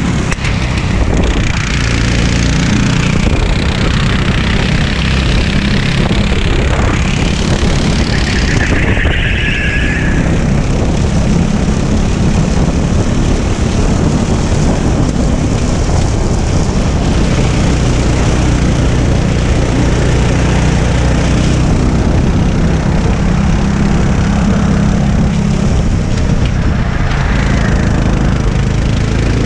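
Go-kart engine running hard at racing speed, heard on board the kart itself, its note shifting slightly as it accelerates and slows through the turns.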